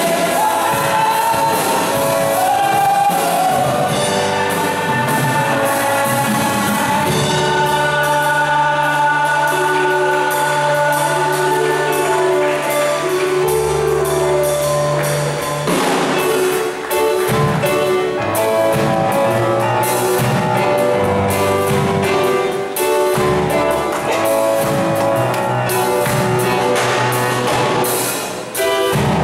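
Women's gospel choir singing into microphones with instrumental accompaniment; a long low note is held under the voices, and a steady beat comes in about halfway.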